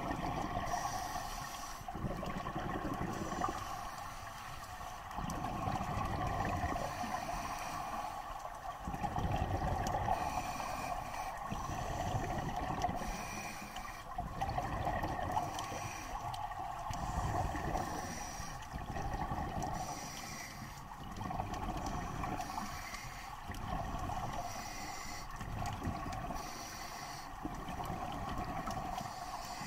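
Scuba diver breathing underwater through a regulator: a hiss on each inhalation and a rumble of bubbles on each exhalation, recurring every few seconds.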